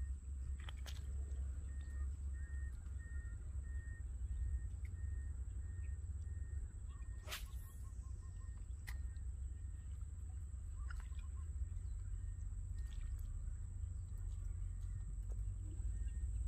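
Wind rumbling on the microphone, with a bird repeating one short high note about three times a second for the first few seconds before it fades. A few sharp brief sounds come through, the loudest about seven seconds in.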